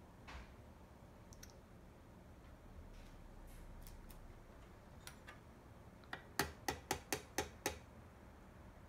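A few faint scattered clicks, then about six sharp taps on a small hard object in quick succession, roughly four a second, about six seconds in.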